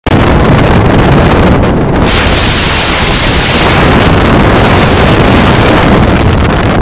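Strong wind buffeting the microphone: a loud, steady rumble and hiss.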